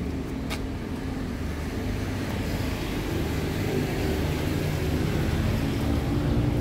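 Honda CR-V's 2.4-litre four-cylinder engine idling steadily, a little louder toward the end, with a light click about half a second in.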